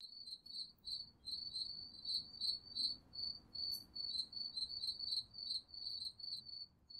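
Crickets chirping: a steady run of short, high, evenly pulsed chirps that starts abruptly out of silence. It is the stock sound effect used to mark an awkward silence.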